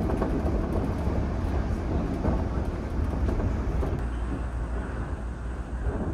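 Shonan Monorail suspended rubber-tyred train running along its overhead track, heard from inside the car: a steady low rumble with running noise.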